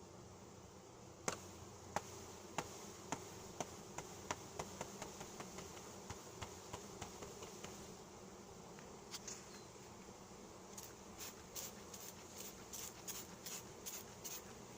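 Honeybees buzzing steadily around an open hive. About a second in comes a run of sharp clicks that grow quicker and fainter, and in the second half a string of short hissing bursts.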